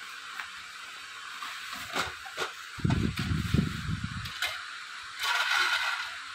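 Plastic bubble wrap rustling and crinkling as it is pulled off a clear acrylic tray, with a few sharp clicks and low handling bumps, over a steady background hiss. The loudest crackle comes near the end.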